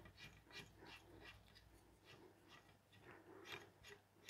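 Faint rubbing of an electrical cord sliding through a hand and down into a standard lamp's stem, in a series of short, irregular rustles.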